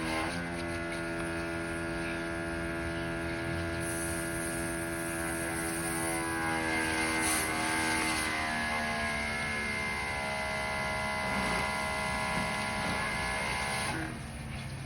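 Pressure washer running steadily, a humming motor with the hiss of the spray on top; the motor's pitch shifts about halfway through.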